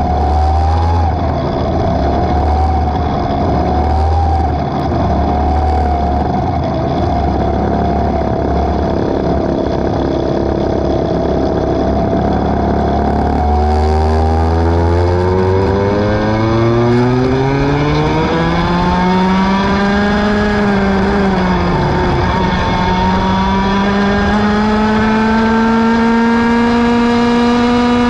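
Racing kart engine heard from on board, running low and steady at first. About halfway through the revs climb hard, ease off briefly once, then climb again and hold high, falling away at the very end.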